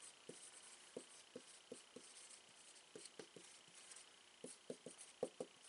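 Dry-erase marker writing on a small whiteboard: faint, short strokes coming in irregular runs of two or three.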